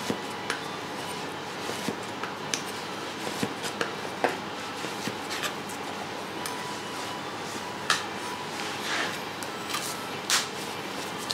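Knife slicing wagyu beef into thin yakiniku slices on a plastic cutting board: scattered light taps and clicks of the blade meeting the board as each slice is cut and laid down, over a steady background hiss.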